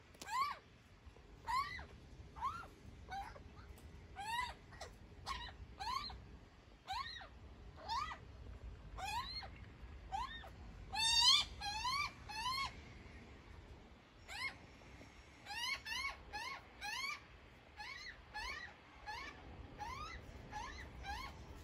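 Juvenile Australian magpie begging calls: short squawks that rise and fall in pitch, repeated about every half second, with a louder quick run of calls about halfway through.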